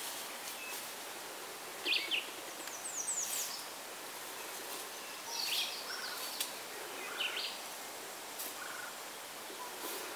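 Wild birds calling: scattered short high chirps and a few quick falling whistles over a steady faint outdoor hiss.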